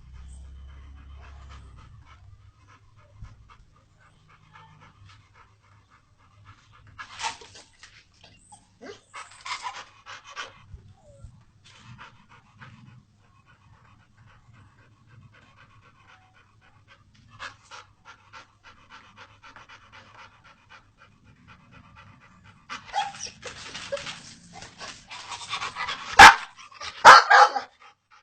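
American Pit Bull Terrier panting in quick bursts that come and go, louder and busier near the end, with two sharp loud sounds in the last couple of seconds.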